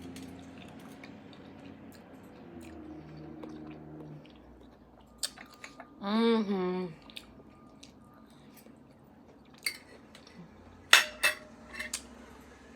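Eating sounds: chewing, with scattered sharp clinks of cutlery on a plate, loudest in a quick cluster about eleven seconds in. There is also a short vocal sound, rising and falling in pitch, about six seconds in.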